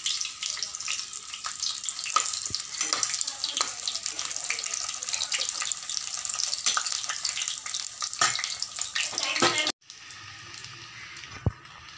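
Coated paneer cubes deep-frying in hot oil: a busy sizzle full of crackles and pops. Near the end it cuts off suddenly and gives way to a fainter, steadier sizzle.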